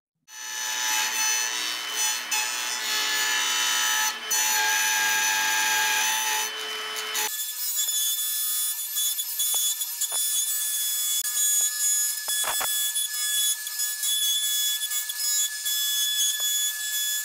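Porter-Cable electric router with a bearing-guided straight bit switched on just after the start and running at full speed with a steady high whine. About seven seconds in the sound changes abruptly as the router cuts along a wooden frame rail, a whine over a hiss of cutting.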